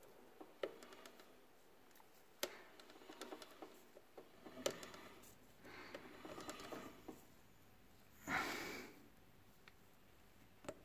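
Rag rubbing along a motorcycle drive chain, with scattered light clicks of the metal links and sprocket as the chain is worked by hand. One short hiss about eight seconds in.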